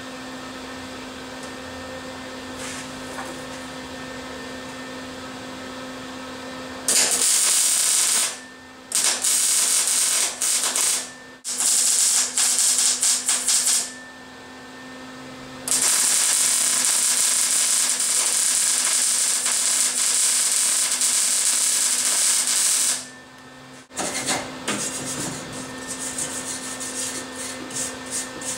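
Grinder cleaning up the freshly cut ends of a 5 mm steel bar. A steady hum for several seconds, then loud hissing grinding in several bursts with short pauses, and lighter scraping near the end.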